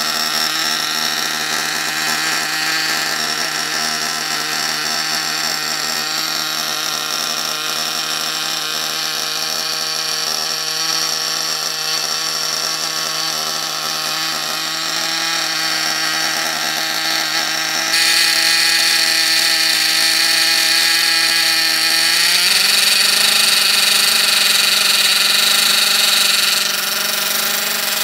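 Reds XR21 .21 nitro engine in an RC buggy running during break-in, a steady high buzz that rises and gets louder about eighteen seconds in, then drops back shortly before the end. Its running is abnormal, the behaviour of an extremely lean carburettor setting.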